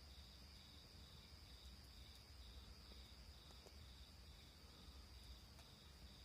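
Faint night insects, crickets by their sound: one steady high trill, and a second insect chirping about twice a second. A few faint crackles from a campfire come through now and then.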